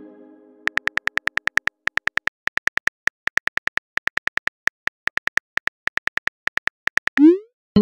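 Phone keyboard key clicks tapping out a text message, a fast, even run of short clicks, several a second. It opens on the fading tail of a message chime, and a short rising swoosh near the end marks the message being sent.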